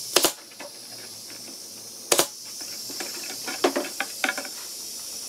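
Pneumatic nail gun firing twice, about two seconds apart, each shot a sharp crack, nailing the corners of a wooden window jamb together. Several lighter clicks and knocks follow near the end, over a steady high hiss.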